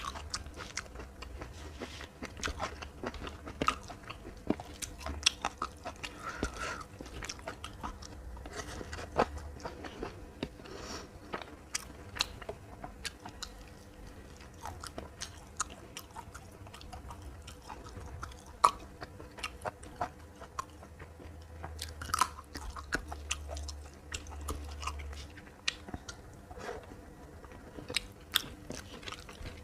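Person chewing and biting a meal of fried fish, green beans and rice, with many small irregular crunches and wet mouth clicks throughout.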